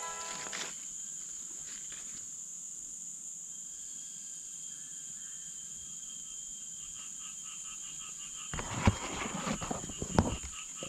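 Steady high-pitched drone of tropical forest insects, with a fainter pulsing call joining about halfway. Near the end, footsteps crunch and rustle through dry leaf litter and undergrowth, with two louder snaps.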